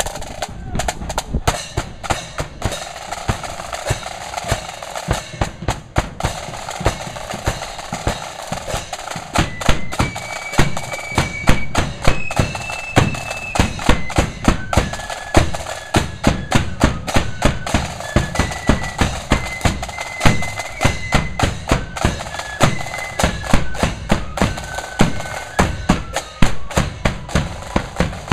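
Flute band playing: snare and bass drums beat a steady march rhythm with rolls, and about ten seconds in the flutes come in with a high melody.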